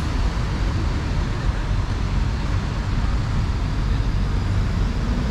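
Steady city street traffic: buses and cars running along the road beside the pavement, a continuous low rumble with no distinct events.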